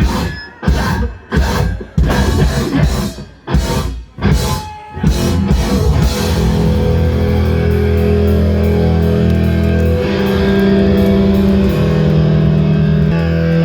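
Rock music with guitar: for the first half, sharp stop-start hits, then held guitar chords that change pitch a few times.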